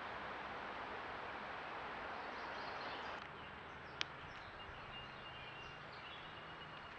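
Steady outdoor background noise, an even hiss that eases slightly about three seconds in, with a single sharp click about four seconds in and a faint high tone near the end.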